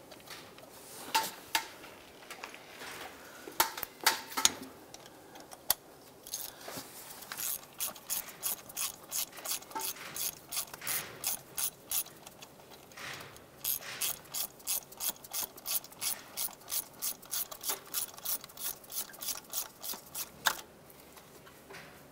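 Hand ratchet clicking on an extension and spark plug socket as a new spark plug is snugged down: a few scattered clicks and knocks, then two long runs of regular ratchet strokes, about two or three a second, with a short pause between them.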